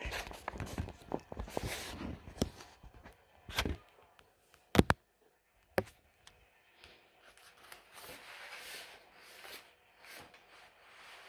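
Rustling and handling noises with a few sharp knocks, the loudest about halfway through.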